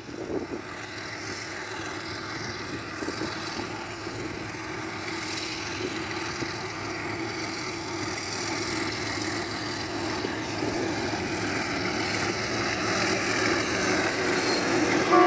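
Hitachi-built diesel locomotives hauling a passenger train, engines running and wheels rumbling on the rails. The sound grows steadily louder as the train approaches and draws alongside.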